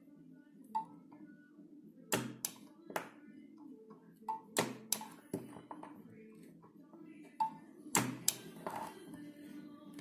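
Resistance spot welding of a strip onto a battery cell with a spring-loaded ZBU-3 electrode holder. There are about ten sharp cracks at irregular intervals, each a weld pulse as the electrodes are pressed down, over a low steady hum.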